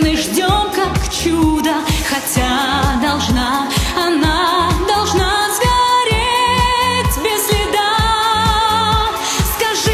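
Pop song music with a steady drum beat and a wavering, vibrato melody line.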